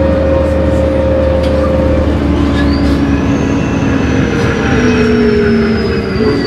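Cabin sound of a 1998 New Flyer C40LF bus under way: its Cummins Westport C Gas Plus CNG engine and Voith three-speed transmission whine over road noise. About halfway in, the low engine hum drops away and a high whine rises, then slowly falls in pitch along with the lower tones.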